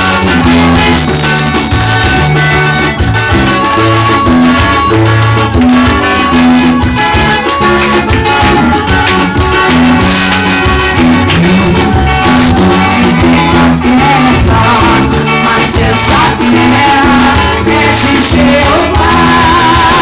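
Gospel band music with a steady, lively beat, a moving bass line and held instrument tones, played loud.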